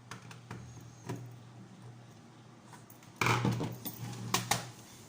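Scattered clicks and knocks from handling a plastic toy housing while its screws are tightened, with a louder clatter of plastic about three seconds in, over a steady low hum.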